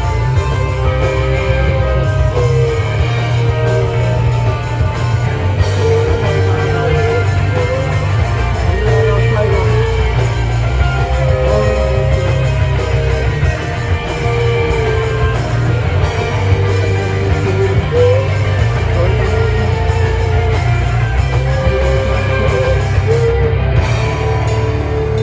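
A rock band playing live and loud: electric guitars, bass and drums with steady cymbals, one guitar repeating a high melodic phrase over the heavy low end.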